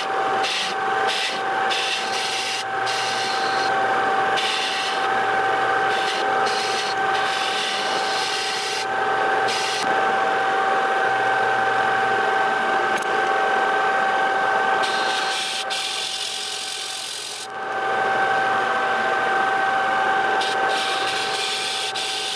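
Small Chinese combination mill-lathe running with a steady whine while a lathe tool takes facing cuts across a spinning metal back plate, the cutting hiss breaking off and starting again many times. The sound sags and briefly drops out about three-quarters of the way through, then picks up again.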